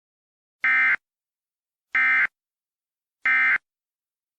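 Three short bursts of Emergency Alert System SAME data tones, the end-of-message signal that closes an alert, each about a third of a second long and spaced a little over a second apart.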